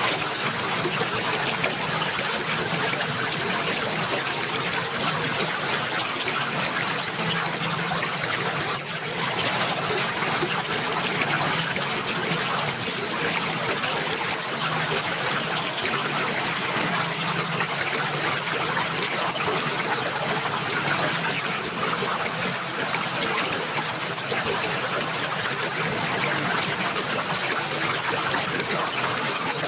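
Water trickling and flowing steadily, an even rush with no pauses.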